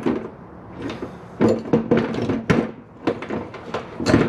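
Hand tools being handled and knocked together: a series of sharp knocks and metal clinks, several ringing briefly, bunched in two spells.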